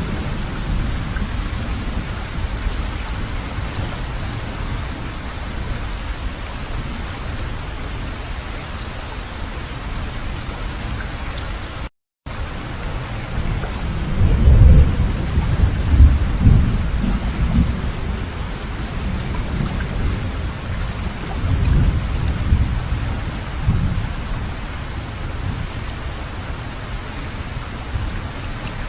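Steady heavy rain falling, with thunder rumbling low in two long rolls in the second half. The sound cuts out for a moment near the middle.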